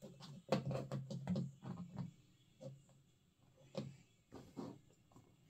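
Plastic action figure and its accessory pieces handled and set down on a tabletop: a quick run of clicks and taps in the first two seconds, then a few scattered single clicks.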